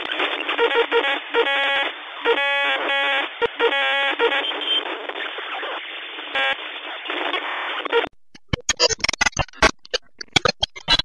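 Distorted, narrow-band music-like sound, thin as if through a small radio, with stuttering repeated tones. About eight seconds in it cuts off suddenly and gives way to irregular crackling clicks.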